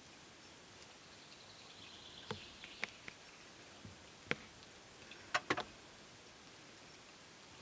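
Wild boar piglets feeding with their snouts in a muddy puddle: a few sharp, faint clicking smacks from their mouths and the water, scattered through the middle, the loudest three close together about five and a half seconds in.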